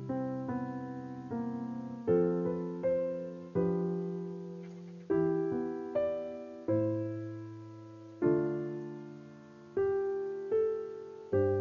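Background music: slow, gentle solo piano, single notes and chords each struck and left to fade, roughly one a second.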